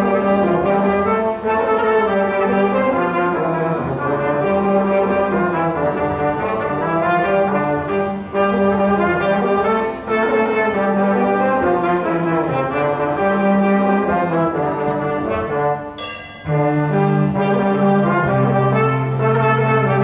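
Live Balkan brass band music: trumpet and trombone playing the tune over a tuba bass line, with accordion and drum kit. There is a short break about sixteen seconds in, then the low bass comes back in.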